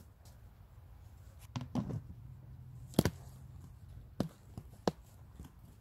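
A handful of short, sharp clicks and knocks from fishing tackle and a bait tub being handled, the loudest about three seconds in.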